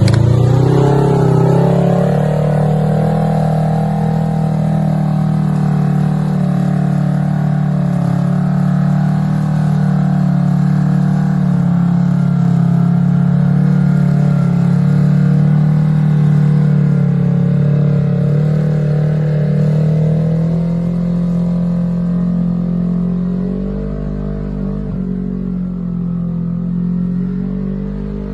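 Side-by-side UTV engine, the Kawasaki Teryx KRX 1000's parallel twin, idling steadily close by. It gets slightly quieter near the end.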